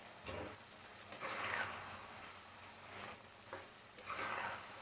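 Chicken pieces in a spiced onion gravy, with sour yogurt just added, being stirred in a metal wok-style pan: a few short scraping strokes of a metal utensil about a second in and again near the end, over a faint sizzle of the simmering gravy.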